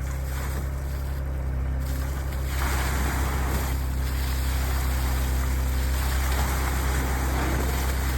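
A site dumper's engine idling with a steady low hum, while about two seconds in, a rush of water starts pouring out of its skip into a soakaway test hole and grows louder.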